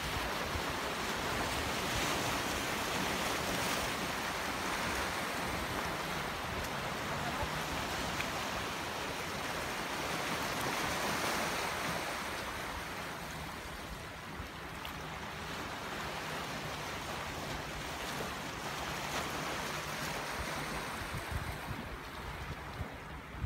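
Surf from a rough sea washing in, with wind on the microphone; the noise swells twice, a few seconds in and again about halfway through.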